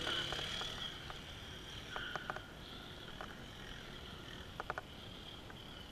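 A dirt bike's engine fading as the bike rides away across the rock, leaving a faint high hum, with a few short high ticks about two, three and nearly five seconds in.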